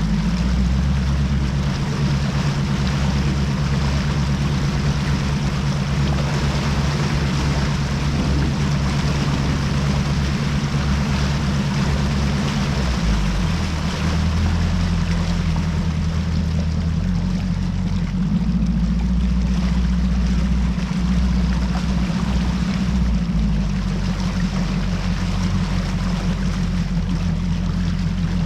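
Boat's outboard motor running under way, a steady low engine drone with the rush of water and wind over it; the engine note shifts a little about halfway through and again a few seconds later.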